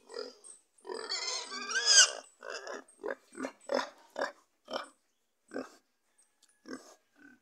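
Young Duroc boar grunting in short, repeated grunts, about two a second, thinning out near the end, with a longer, louder squeal about a second in.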